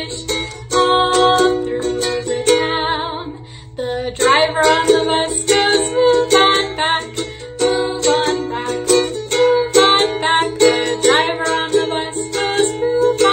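Music: a strummed string instrument playing chords in a steady rhythm, with a short lull about three and a half seconds in.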